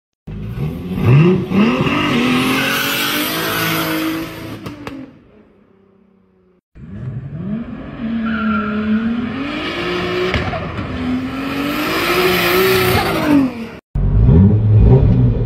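Turbocharged R32 VR6 engine of a 2001 Audi S3, running low boost, accelerating hard in two runs, its revs climbing and dropping through gear changes. The first run fades away. After a sudden cut about fourteen seconds in, the engine idles steadily, heard from inside the car.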